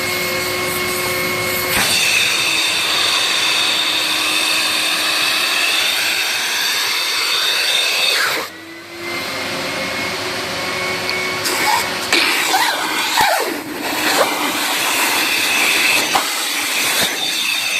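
Portotecnica wet/dry vacuum running with a steady rushing whine. The sound drops briefly about eight and a half seconds in, and from about twelve seconds on its level and pitch waver unevenly.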